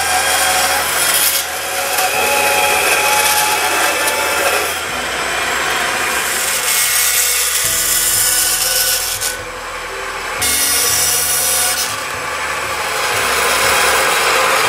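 A small vertical bandsaw running and cutting knife-handle stock: thin liner sheets, then a dark wooden block, its blade hissing steadily through the material. The cutting noise drops out briefly about nine seconds in, then carries on.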